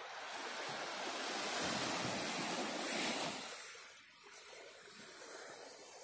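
Small waves of a calm sea washing onto a beach. One wash swells up over the first three seconds, then falls away about four seconds in.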